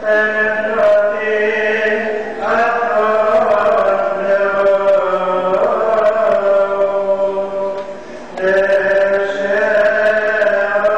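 Coptic priest chanting the Gospel solo in the liturgical style, holding long, slowly bending notes, with short breaks for breath about two and eight seconds in.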